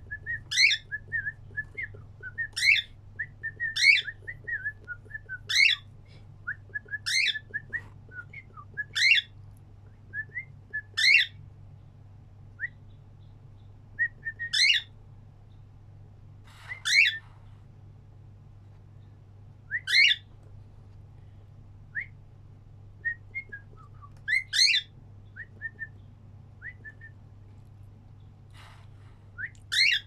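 Cockatiel whistling a repeated song phrase: a few short chirpy notes, then a quick upward-sweeping whistle, about every second and a half at first and more sparsely after the middle, over a faint steady low hum.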